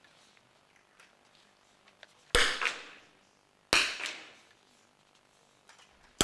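Two smallbore .22 rimfire target rifle shots about a second and a half apart, each a sharp crack followed by a short echo.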